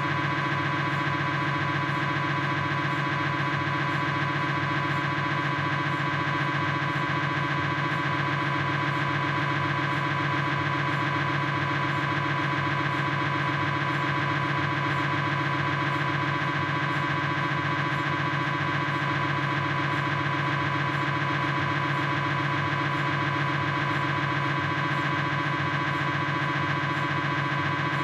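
Philips 1.5-tesla MRI scanner's gradient coils running a proton-density fat-suppressed sagittal knee sequence (SPIR): a steady, rapidly repeating pitched buzz at an even level.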